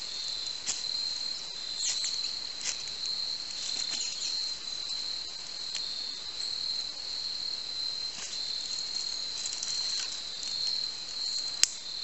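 Crickets chirping in a steady high trill, with scattered small clicks and crackles as a small fire is started in kindling, and one sharp snap near the end.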